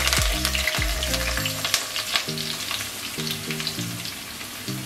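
Sliced onions and curry leaves sizzling and crackling in hot coconut oil in a clay pot, the sizzle easing a little toward the end as more onion goes in.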